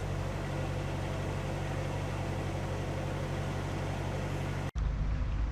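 Narrowboat diesel engine running steadily while cruising. Near the end the sound cuts off abruptly and gives way to a louder, deeper rumble.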